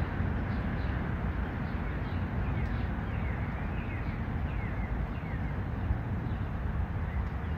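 Outdoor background noise: a steady low rumble, with a small bird chirping several short falling chirps in the middle.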